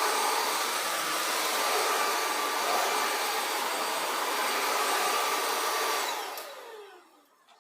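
Cordless stick vacuum cleaner running steadily with a motor whine, then switched off about six seconds in, its motor winding down with a falling pitch to silence.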